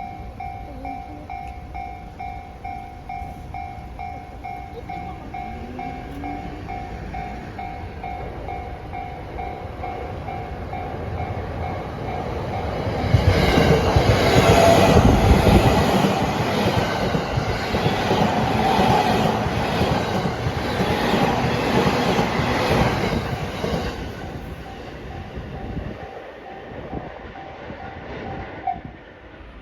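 Level crossing warning bell ringing in a fast, even rhythm while a JR East 209 series 1000 electric commuter train passes, loud for about ten seconds in the middle with its wheels clattering over the rail joints. The bell stops near the end.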